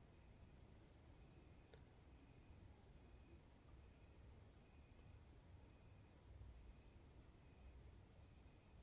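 Faint, continuous high-pitched trill of crickets, with a softer, lower chirp repeating about twice a second.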